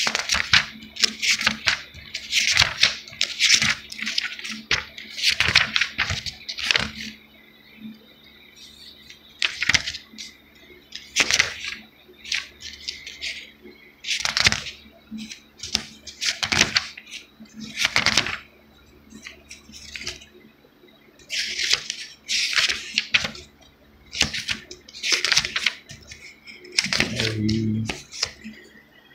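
Thin pages of a Bible dictionary being turned and flipped by hand: a run of quick paper rustles, dense for the first several seconds and then coming every second or two.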